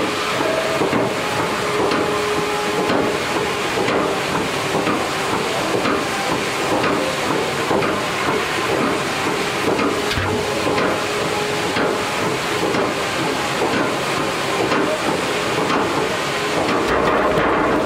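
Sawmill log unscrambler and chain conveyor running: a steady mechanical noise with a faint hum and many small clicks.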